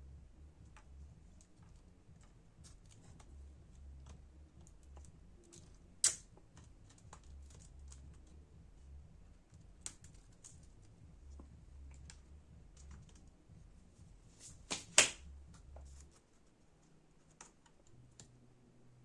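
Light, scattered clicks and taps of laptop keyboard and chassis parts being handled and pressed into place, with two sharper clicks about six seconds in and near fifteen seconds.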